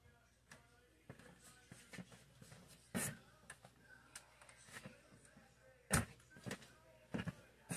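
A few short, sharp knocks and thuds, about three seconds in, at six seconds and twice near the end, with faint shuffling between them.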